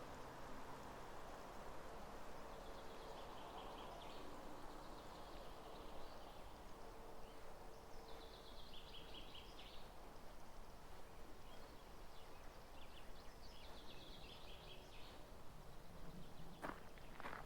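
Quiet outdoor ambience in which a small songbird sings short, rapid trills several times. Near the end, footsteps start crunching on gravel.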